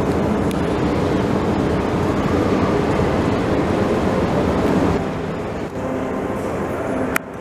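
Steady, echoing background rumble of a large railway station hall with a running escalator. The level drops about five seconds in, and a short sharp click comes near the end.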